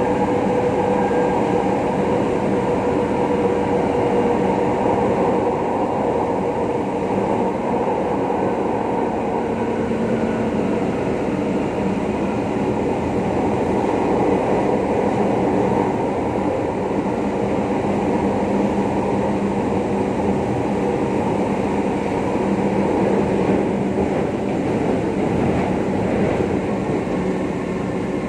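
Elevated metro train heard from inside the carriage while running along the track: a steady rumble of wheels and running gear with a constant low hum, easing off slightly near the end.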